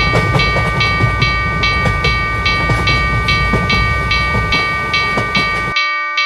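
Japanese railroad crossing warning bell ringing at about two strikes a second, over the low rumble and wheel clatter of a passing train. The train noise cuts off suddenly near the end while the bell keeps ringing.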